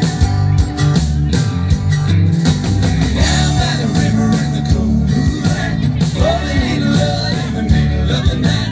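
Live country-rock band music with a steady drumbeat, bass and guitar, played as an instrumental passage between sung lines.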